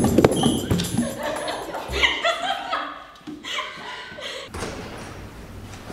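Background music with percussion trailing off in the first second amid a few thuds, then a couple of seconds of laughter and voices, then a low room hum.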